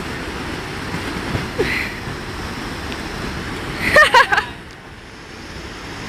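Steady rush of water at a river waterfall, with a short shout from a person about four seconds in.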